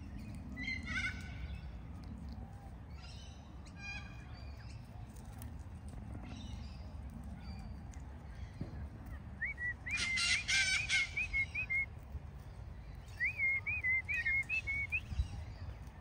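Long-billed corellas calling: a few short squawks in the first seconds, then two runs of harsh, wavering calls, the loudest about ten seconds in and another from about thirteen seconds, over a low steady background rumble.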